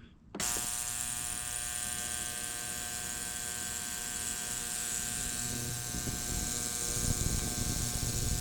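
Ultrasonic cleaner switching on about half a second in and running with a steady buzz and hiss, its tank of hot water and dish soap loaded with greasy steering-rack parts.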